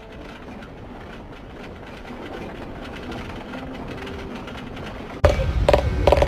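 Low, steady background noise, then about five seconds in a machine starts abruptly and runs loud, with a fast even rattle over a steady hum.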